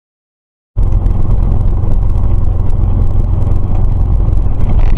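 Silence, then about a second in a car's engine and road noise, picked up by a dashcam inside the cabin, cuts in suddenly and runs on steadily with a heavy low hum.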